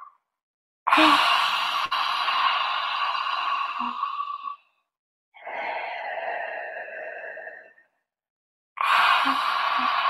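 A woman doing lion's breath pranayama, breathing forcefully in and out through the wide-open mouth with the tongue out, each breath a long, noisy hiss. Three breaths of about three seconds each with short silences between, the middle one softer.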